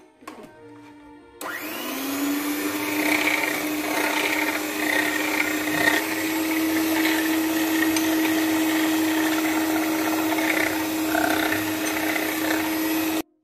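Electric hand mixer switched on about a second and a half in, its motor spinning up to a steady whine as the beaters whip egg whites and sugar in a bowl, then switched off abruptly just before the end.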